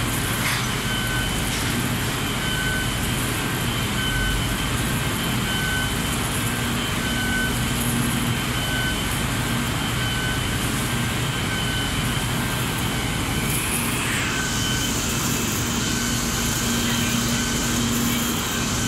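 Fire engine running steadily under load, its engine driving the pump while the aerial ladder's hose sprays water, a dense steady noise with a low engine hum. A short warning beep repeats evenly, a little faster than once a second.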